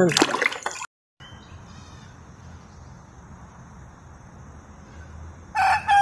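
Rooster crowing once, a loud call starting about five and a half seconds in, after a few seconds of faint outdoor background. At the very start, a brief splash of soapy water as a toy is scrubbed in a plastic tub, cut off abruptly.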